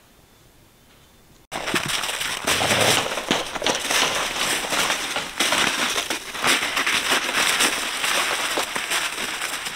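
Faint room tone, then a sudden change about a second and a half in to dense, steady crunching and crackling of packed snow under footsteps as two dogs play and run in it.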